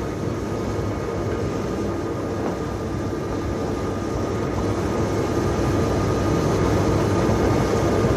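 Steady machinery drone of a ship's engine room: a dense rumble with a few steady hum tones running through it, slowly getting louder.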